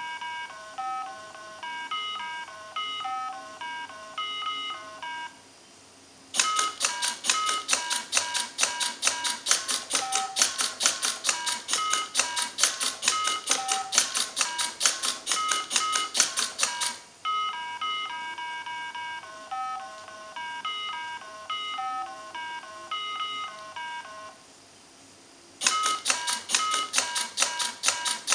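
Mini Simon electronic game beeping out a sequence of tones at a few fixed pitches, then a robot repeating it: rapid mechanical clicking, several clicks a second, with the game's tone sounding for each button pressed. The pattern comes round twice: beeps, a brief pause, then a stretch of clicking, and again beeps, then clicking that starts near the end.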